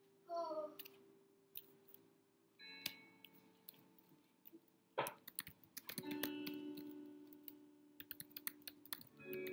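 Computer keyboard typing in short bursts of clicks, quicker near the end, over faint lofi hip hop music with soft sustained chords. A brief sliding tone sounds just after the start.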